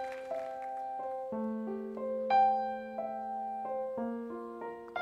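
Slow solo piano intro: single notes and soft chords struck about once a second and left to ring.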